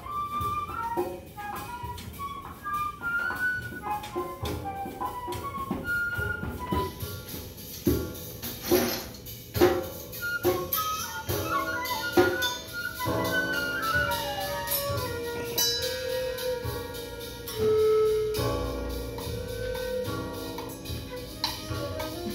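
Free improvised acoustic music: short, jumping wind-instrument notes over scattered percussion taps, giving way past the middle to longer held lower notes.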